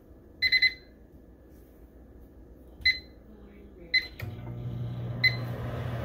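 Microwave oven keypad beeping as the cooking time is entered. A quick triple beep comes about half a second in, then single beeps near three and four seconds. Just after the beep at four seconds the oven starts running with a steady low hum, and one more beep comes near the end.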